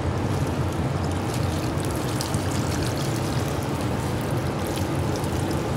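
Melted butter pouring in a steady stream from a pot onto a pan of pulled chicken, over a steady low hum.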